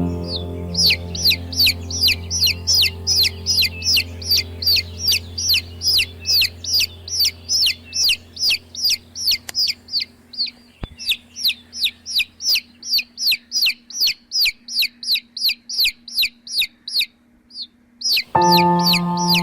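Baby chicks peeping in a fast, even run of high, downward-sliding peeps, about three a second, with a short pause near the end. Soft music sits underneath in the first half and returns near the end.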